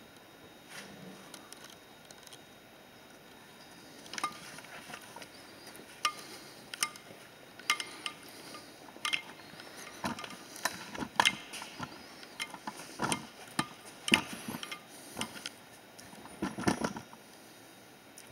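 Footsteps on a concrete floor: a series of sharp clicks at roughly walking pace that start a few seconds in and stop near the end.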